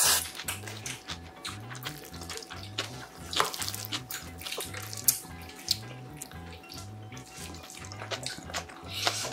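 Wet chewing and smacking of a mouthful of bibimbap, with a long spoon scraping and clinking in a brass mixing bowl. Background music with a steady repeating bass runs underneath.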